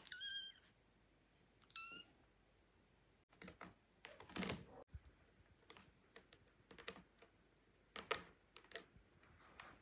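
Kitten meowing twice, short and high-pitched, in the first two seconds. This is followed by scattered scratching and clicking as its claws grip the plush and sisal of a cat tree while it climbs.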